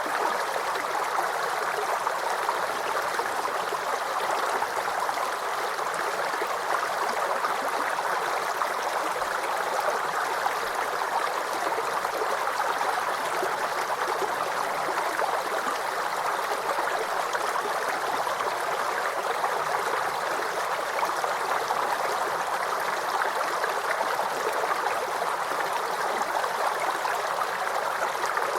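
Small forest creek babbling and gurgling over stones, a steady, unbroken rush of running water.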